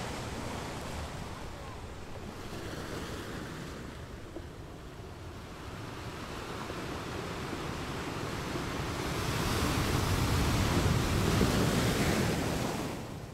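Ocean surf: waves rolling in and breaking, a steady wash that swells louder about nine seconds in and fades away at the end.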